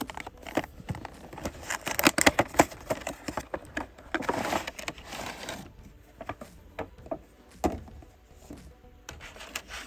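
Toy car multipack packaging being cut and opened: a run of sharp clicks and crackles, with a longer rustling scrape about four to five and a half seconds in.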